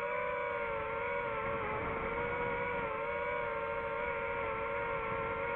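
DJI FPV drone's motors and propellers whining steadily in flight, a cluster of close pitches that wobble and dip slightly together as the motor speeds change.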